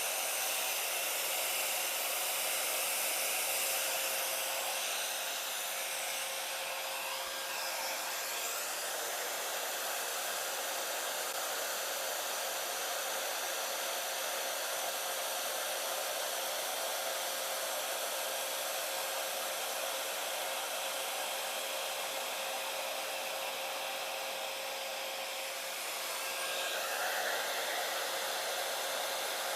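Hand-held blow dryer running steadily: a constant rush of air with a steady motor tone, blowing acrylic paint across a canvas in a blow dryer pour.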